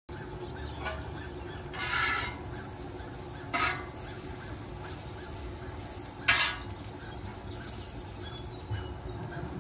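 Metal spatula scraping and stirring sliced peppers and onions on a Camp Chef gas griddle, three short scrapes over a steady low sizzle.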